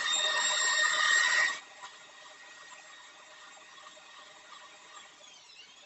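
Electric drill abrading the rubber inside a tubeless tyre around a side cut, roughening it so a repair patch will stick: a high whine with a rasping, rubbing noise. It stops abruptly about a second and a half in, leaving only faint hiss.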